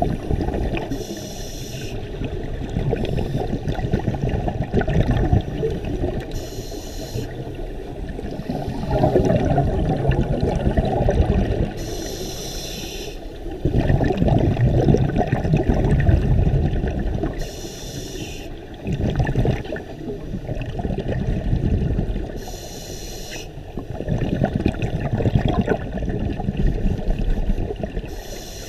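Scuba regulator breathing underwater: a short hiss of inhalation about every five and a half seconds, with the rumble and gurgle of exhaled bubbles between the breaths.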